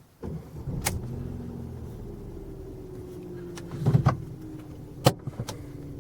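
Inside a Ford Focus 3, a steady low mechanical hum starts suddenly right at the beginning and carries a tone that falls slowly in pitch. Sharp clicks come about a second in, around four seconds in and about five seconds in.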